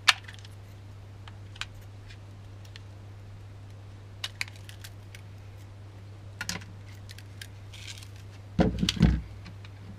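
Fishing tackle being handled on a wooden workbench, a spool of monofilament line and small tools: scattered light clicks and taps, with a louder cluster of knocks near the end, over a steady low hum.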